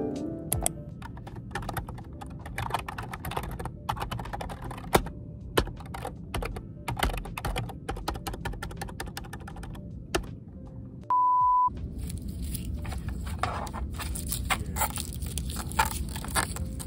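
Fast typing on a computer keyboard, a dense run of key clicks. About eleven seconds in comes a short steady beep, then crinkling and crackling of plastic wrap being pulled off a new keyboard.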